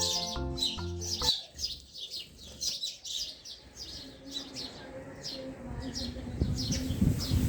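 Small birds chirping in a quick repeated series of short, falling notes, two or three a second. Background music fades out about a second in, and a low rumbling noise rises near the end.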